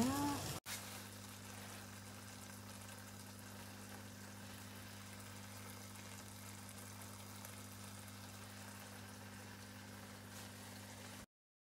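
A steady low hum with a faint, even hiss, cutting off suddenly near the end.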